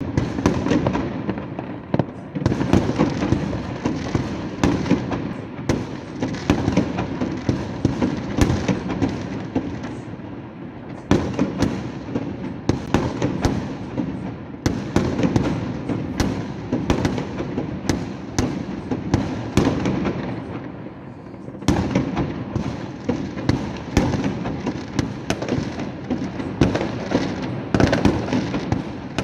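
New Year fireworks going off in a dense, continuous barrage of bangs and crackles, several cracks a second. The barrage eases briefly about ten seconds in and again about twenty seconds in, then picks up again.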